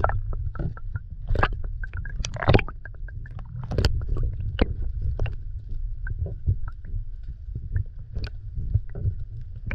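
Sea water heard through an underwater camera: a low, muffled rumble with irregular sharp clicks and knocks, and a faint steady high tone.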